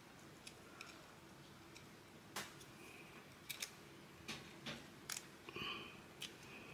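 Faint, irregular clicks and small scrapes of a thin wire tool prodding inside a small vial, picking at the foam plug packed in it.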